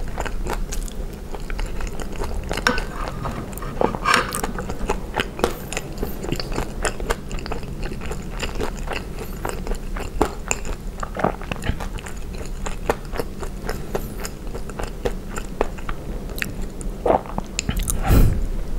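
Chewing a mouthful of poutine (fries and cheese curds in gravy), with many small mouth clicks and a louder knock near the end.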